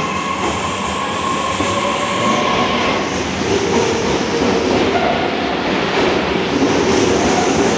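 Fukuoka City Subway 2000 series train moving along the platform in an underground station, its wheels rumbling and clacking on the rails. A high steady whining tone fades out about three seconds in.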